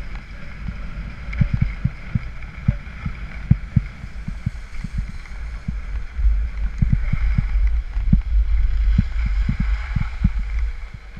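Skis sliding and scraping over spring snow, a steady hiss that grows louder about halfway through, over a low rumble with many short thumps from wind on the camera's microphone.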